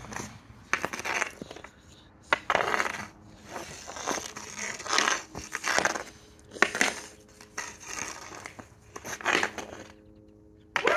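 Hockey stick blade and rubber puck scraping and clacking on rough asphalt as the puck is stickhandled, in repeated strokes a second or two apart, then a short lull near the end.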